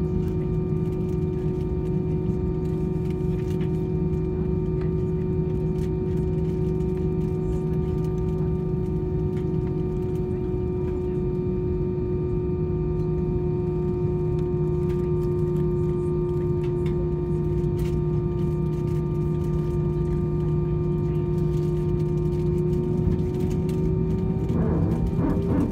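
Steady drone inside an Airbus A319's passenger cabin, from the idling engines and air conditioning: a low rumble with several constant hum tones. Near the end the main tone rises slightly.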